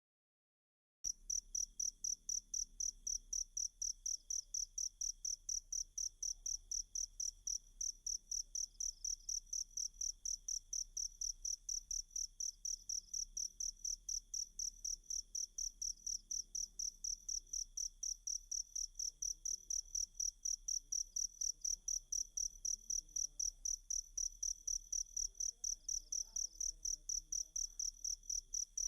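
Cricket chirping in a steady, even rhythm of high-pitched pulses, several a second, starting about a second in after silence.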